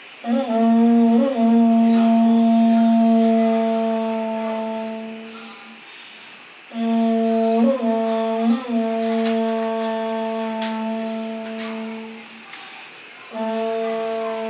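Horagai (conch-shell trumpet) blown in long, steady blasts: two full blasts of about five seconds each, and a third starting near the end. Each opens with a wavering, stepping pitch before settling into one low held note. The three blasts are the signal for the train doors to open.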